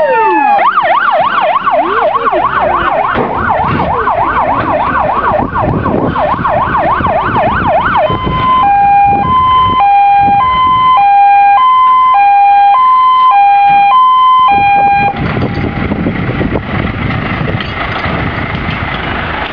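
Fire engine siren in a fast yelp, about three sweeps a second, that switches about eight seconds in to a two-tone hi-lo horn alternating between two pitches roughly once a second. The horn cuts off suddenly about fifteen seconds in, leaving a steady rumble of the stopped truck's running engine.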